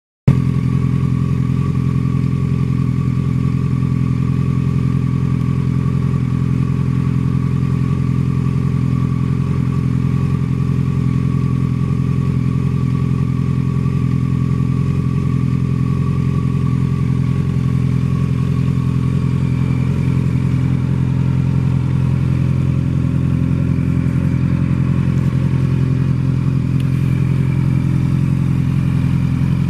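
2012 Yamaha FZ8's inline-four engine idling steadily through a Two Brothers Racing aftermarket exhaust.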